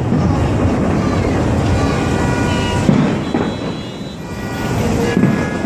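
Fireworks display: a continuous low rumble of shell bursts that eases off about four seconds in, then builds again.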